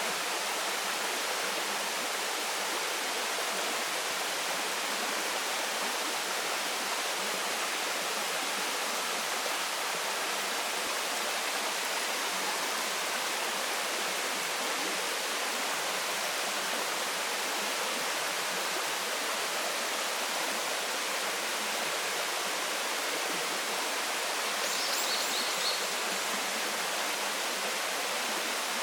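Waterfall pouring steadily, a continuous rush of falling water without a break. A brief high-pitched call sounds about 25 seconds in.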